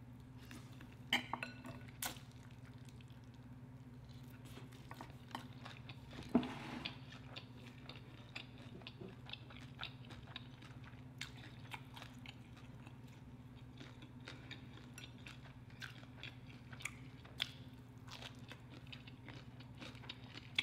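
Eating crispy fried chicken wings: scattered small crunches and clicks of biting and chewing, the loudest about six seconds in, over a steady low hum.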